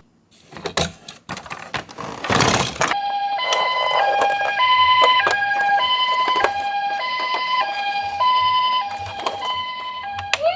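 A toy ambulance's electronic siren sounding a two-tone hi-lo pattern, alternating between two pitches about every half second from about three seconds in; it begins to change to a rising wail at the very end. Before the siren there are a few clicks and a short burst of noise.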